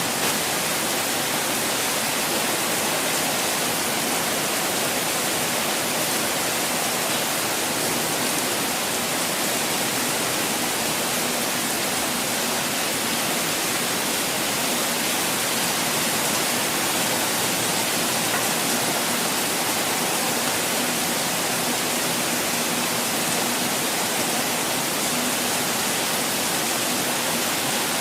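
Falling water making a steady, even rush with no breaks or changes.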